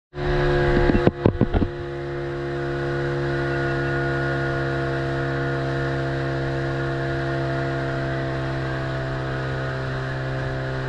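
Dive boat's engine running steadily under way, an even drone with no change in pitch. A few sharp knocks sound in the first second and a half, the loudest part.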